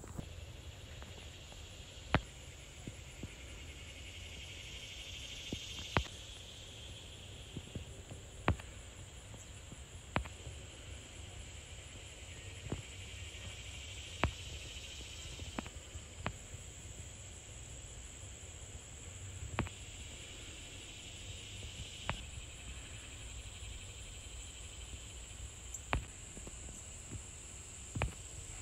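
Faint steady chirring of insects such as crickets in the background, swelling and fading, with a sharp single click every couple of seconds.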